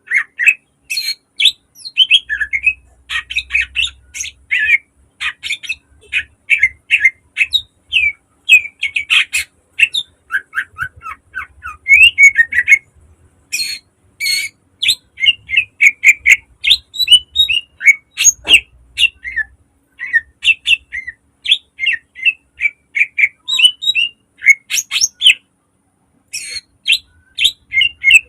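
Cucak ijo (green leafbird) singing a rapid, loud run of short, sharp chirping notes and phrases, with a brief pause near the end.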